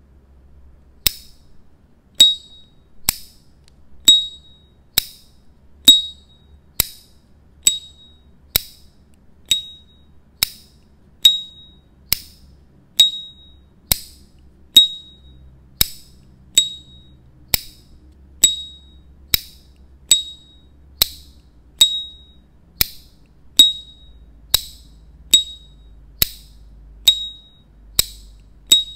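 Brushed-gold S.T. Dupont Ligne 2 lighter lid being flicked open and snapped shut over and over, about once a second. Each stroke is a sharp metallic click with a short, bright, high ringing ping: the lighter's signature 'cling'.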